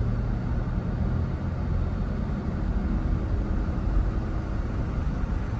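Steady engine and road rumble of a moving tour vehicle, heard from inside the cabin.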